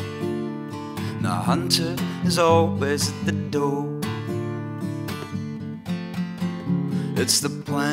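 Background music: acoustic guitar strumming, with held chords and plucked notes.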